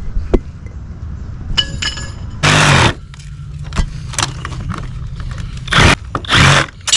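Construction tool work on a house's wooden sill: several short, loud rasping bursts about half a second long, one about two and a half seconds in and two near the end, among scattered sharp knocks and clicks, over a low steady hum.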